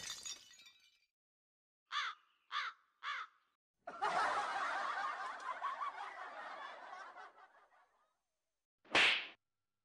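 Comedy sound effects: three short crow caws about two seconds in, then about four seconds of canned laughter that trails off. A short sharp effect sounds near the end.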